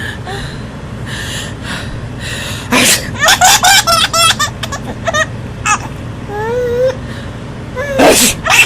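A sneeze about three seconds in, then a quick run of high-pitched laughter. A second sneeze comes near the end.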